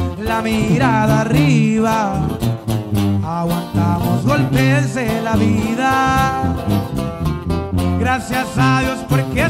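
Background music: a sung song over guitar and a steady bass line.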